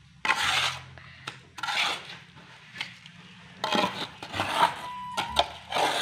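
Trowel scraping and spreading wet mortar over a concrete column in several short rasping strokes.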